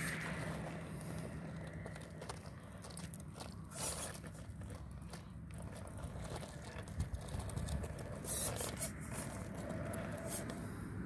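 Radio-controlled Redcat Gen8 scale rock crawler inching over rock and loose gravel: irregular crunching and crackling of tyres and stones, with a few louder crackles, and a faint motor hum that fades about a second in.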